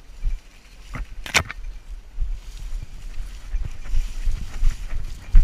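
Dry corn stalks and leaves rustling and swishing as a person walks through a standing cornfield, with uneven thumps of footsteps and a sharp click about a second in.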